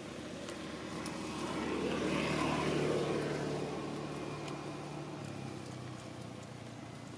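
A motor vehicle passing by with a steady engine hum, growing louder, then fading away over a few seconds.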